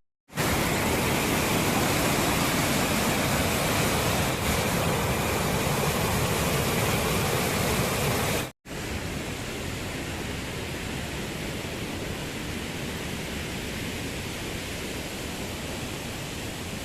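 Waterfall in full monsoon flow: a steady, loud rush of falling water. It breaks off for an instant about eight and a half seconds in and resumes a little quieter.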